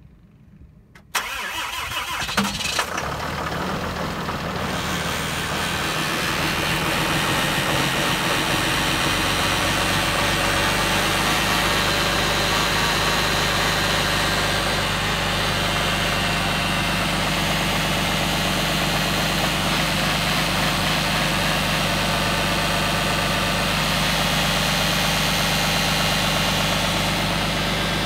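Cummins diesel engine starting from cold about a second in, then idling steadily with a whining noise over the idle.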